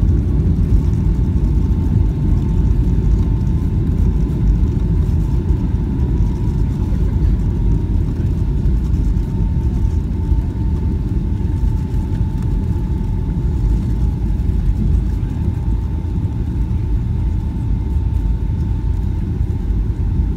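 Cabin noise of a Boeing 757-200 rolling on the ground after landing: a steady low rumble from the wheels and airframe, with a thin steady whine that drifts slightly lower in pitch.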